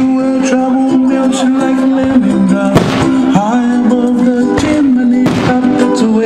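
Music plays throughout, and firework shells bursting overhead cut through it with several sharp bangs, the loudest about three seconds in and a few more near the end.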